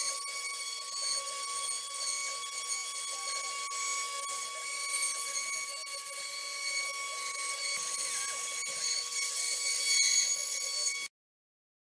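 CNC router spindle running with a steady high whine while a 1/8-inch bit cuts pallet wood, with an uneven scratchy cutting noise under it. It cuts off abruptly near the end.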